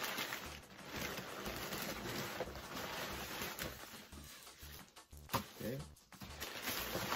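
Crumpled brown packing paper rustling and crinkling as it is pulled out of a cardboard box, with a short knock about five seconds in.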